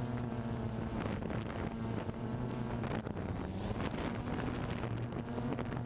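DJI Phantom 2 quadcopter's motors and propellers humming steadily as it climbs, with wind buffeting the microphone.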